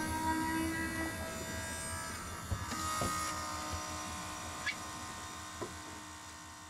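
A steady motor hum with several high, steady tones that starts abruptly and gradually fades away.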